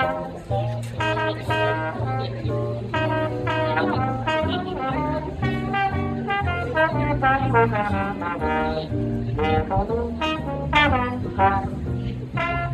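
Slide trombone playing a jazz melody, accompanied by a walking double bass line of low notes that change about twice a second.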